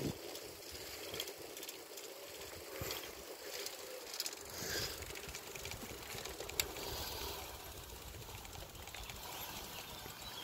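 Bicycle being ridden on a rural track: steady tyre and frame noise, with one sharp click about six and a half seconds in.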